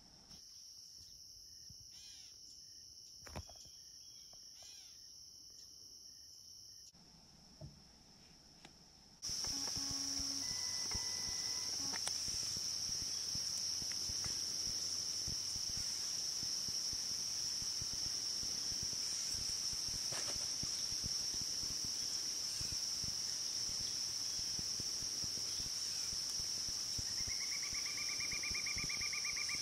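Insects singing in a steady, high, even chorus, quieter for the first nine seconds and then much louder. There are a few faint chirps early on and a short buzzy call near the end.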